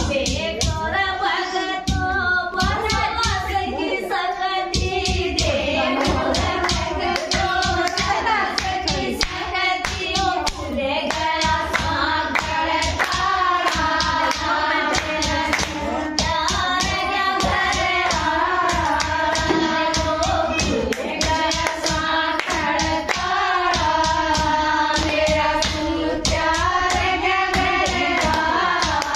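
Group of women singing a Haryanvi devotional bhajan together, keeping time with steady rhythmic hand-clapping.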